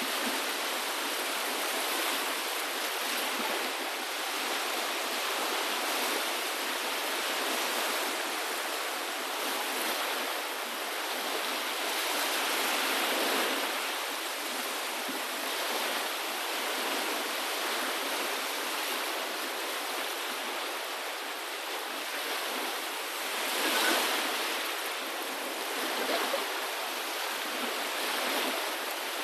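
Sea waves washing ashore in a steady rush, swelling gently about halfway through and a few times near the end.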